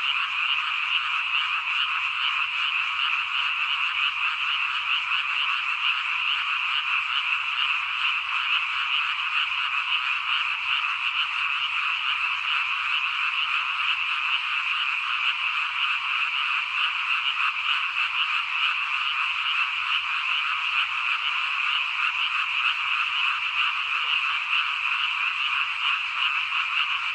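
A dense chorus of many frogs calling at once, an unbroken high chatter with no pauses.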